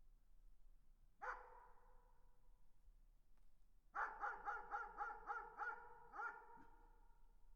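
A dog barking in the distance, faint and echoing: a single bark about a second in, then a quick run of about eight barks a few seconds later, each ringing out after it.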